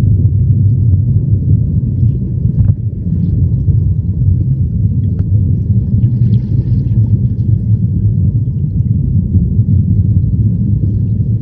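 Stream water heard through a submerged camera's waterproof housing: a steady, muffled low rumble, with a few faint clicks.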